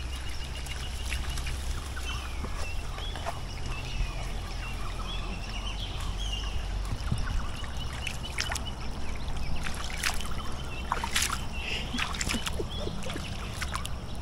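Water splashing and trickling as people and a dog wade across a shallow creek, with short splashes clustered about two-thirds of the way through. Birds call faintly in the first half.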